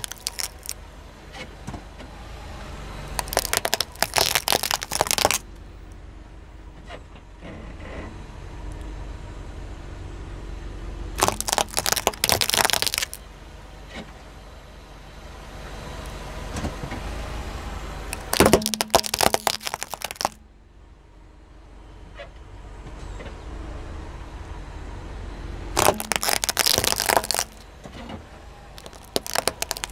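A car tyre rolling over a row of plastic spring toys, cracking and crunching them in four bursts several seconds apart. A low rumble from the car runs between the bursts.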